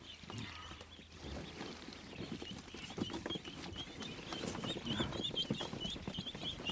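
Mallard ducklings peeping, a fast, continuous string of short high chirps that grows denser about halfway through, over soft scuffling and tapping.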